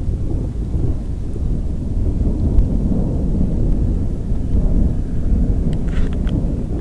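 Continuous low rumble of thunder from a supercell thunderstorm, with a few light clicks about six seconds in.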